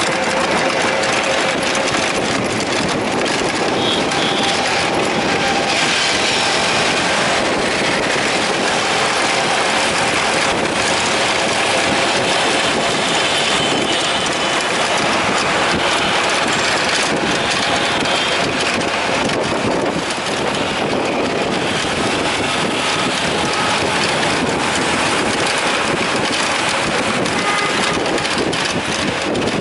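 Steady traffic and road noise heard from aboard an engine-driven cycle rickshaw: motor and tyre noise from the rickshaw and passing vehicles, with wind on the microphone.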